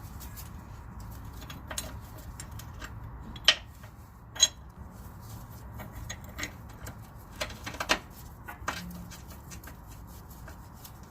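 Scattered metallic clicks and clinks of hand tools and a steel bracket and bolts being fitted back over a sway bar bushing under a car. Two sharper knocks come near the middle, and a quick run of clicks comes later, over a steady low rumble.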